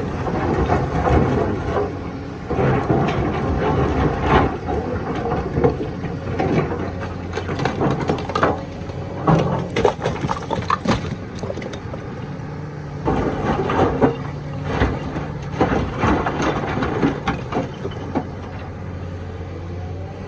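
Kobelco excavator's diesel engine running steadily under load, with repeated irregular clattering and scraping of rock against the steel bucket as it digs.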